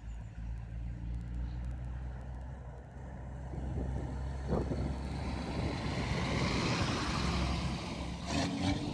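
Scania V8 diesel rigid truck running steadily as it pulls round a roundabout, growing louder as it approaches and passes close by, with tyre and road noise swelling as it goes past. A short burst of noise comes near the end.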